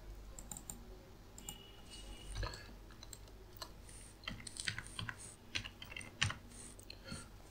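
Computer keyboard being typed on, a string of short, irregular key clicks that come more thickly in the second half.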